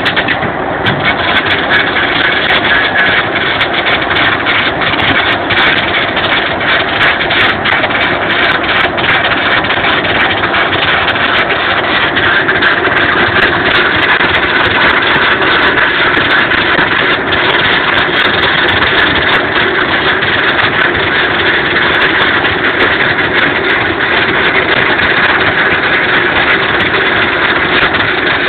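Stick welding: the electrode arc sizzles and crackles steadily with many sharp spatter pops, over a steady machine hum.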